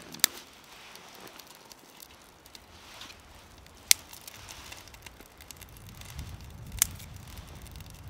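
Small twig fire crackling in a Solo Stove wood-burning camp stove, with scattered small ticks and three sharp snaps.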